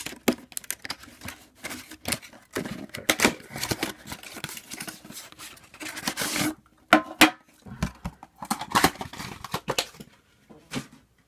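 Trading card packaging being torn open and handled: irregular tearing and rustling of wrapper and cardboard, with many sharp clicks and taps.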